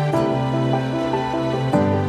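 Soft instrumental background music with sustained chords, changing chord near the end.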